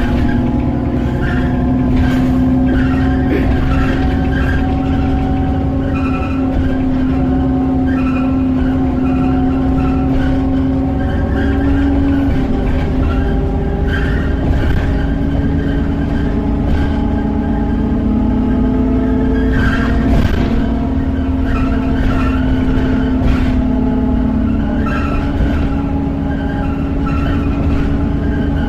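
Alexander Dennis Enviro400 double-decker bus running and driving, heard from inside: a steady engine and drivetrain drone whose pitch shifts about twelve seconds in and again near the end, with occasional rattles.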